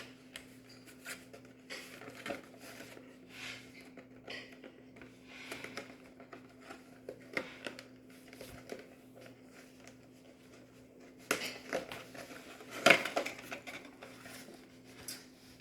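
Gift packaging rustling, with light knocks as items are taken out of a box and handled in short, scattered bursts; the loudest comes about a second from the end. A faint steady hum runs underneath.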